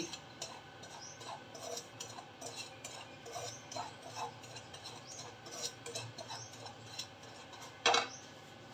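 A spatula stirring broken wheat as it dry-roasts in a non-stick kadai: soft, irregular scraping and ticking of the grains against the pan. Near the end comes a single louder knock as the spatula is set down in the pan.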